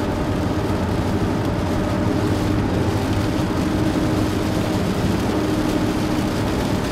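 Steady road and engine noise inside the cabin of a Nissan Murano driving at highway speed, an even hum with a faint steady low tone running through it.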